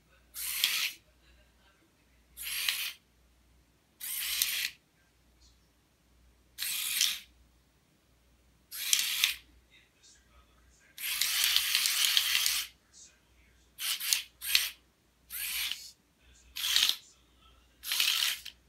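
Small geared DC drive motors of a Cutebot Pro robot car whirring in short start-stop bursts, about a dozen, each under a second, with one longer run of about a second and a half in the middle, as the car is driven by phone app commands.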